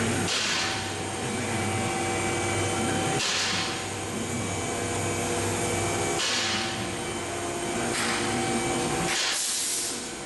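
Infiniti VQ37 3.7-litre V6 (VVEL) running steadily at idle with its muffler removed, the open exhaust heard from underneath the car. Brief hissing rushes come every couple of seconds.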